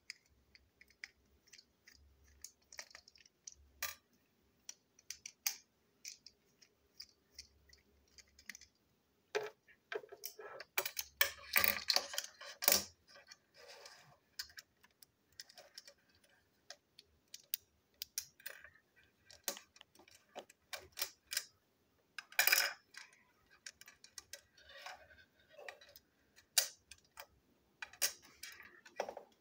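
A small toy train wagon being taken apart by hand: plastic chassis pieces and wheelsets click, snap and clatter on a tabletop in irregular clicks, with a busier stretch of rattling about a third of the way in.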